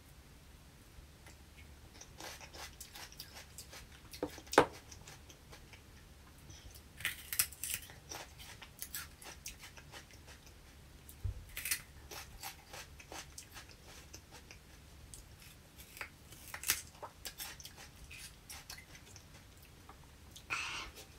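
Close-up eating sounds: irregular crunching and chewing in short bursts, with scattered small clicks from handling food and a sharp click about four and a half seconds in.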